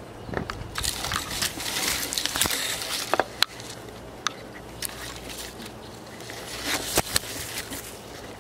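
Leaves and twigs rustling, crackling and scraping against a camera held up on an extended monopod, with sharp clicks of handling. The sound comes in two louder spells, about a second in and again near seven seconds in.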